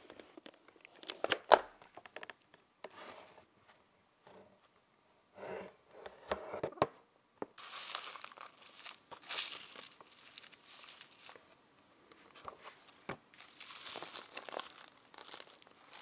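Plastic dust bin of a Cuckoo robot vacuum taken out with a few sharp clicks, the loudest about a second and a half in. From about halfway on, fingers stir the dry leaves, gravel and dust inside it with a crackling, crinkling rustle.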